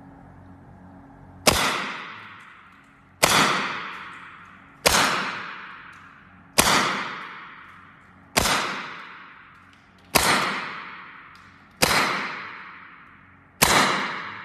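Evanix semi-automatic PCP air rifle in .25 calibre firing eight shots in steady succession, about one every 1.7 seconds. Each is a sharp crack with a ringing tail that fades over about a second. This is a magazine being shot through a chronograph with the reservoir at about 120–130 bar.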